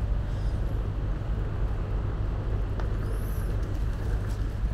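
Steady low rumble of outdoor street ambience, with a few faint high squeaks now and then.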